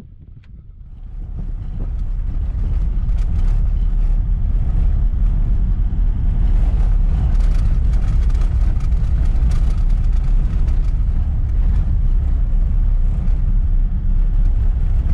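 Vehicle driving on an unsealed road: a steady, loud rumble with scattered clicks and rattles, building up over the first two seconds.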